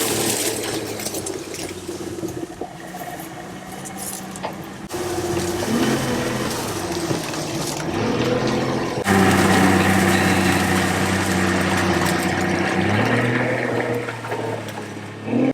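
Boat motor running over water, its pitch sliding up and down with changes in speed, with sudden jumps in sound about five and nine seconds in.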